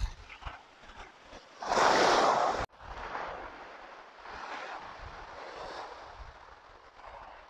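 Small waves breaking and washing up a shingle beach in soft, swelling rushes. About two seconds in, a louder rush of surf and wind lasts about a second and cuts off suddenly.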